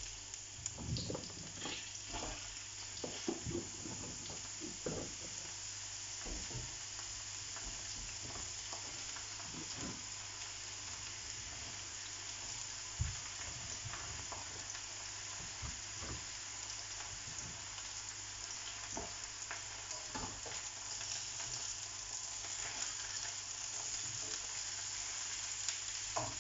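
Sliced peppers, courgette, carrot and mushrooms sizzling steadily as they stir-fry in a hot wok. Scattered knocks and scrapes from stirring with a spatula against the pan come most often in the first ten seconds.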